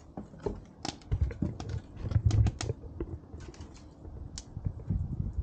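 Firewood sticks being handled and pushed into a wood fire under a wok: irregular clicks and knocks of wood with dull thuds, loudest a second or two in.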